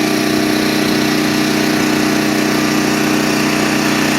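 Champion 6250/5000 watt portable generator's engine running at a steady speed, an even drone with a constant hum.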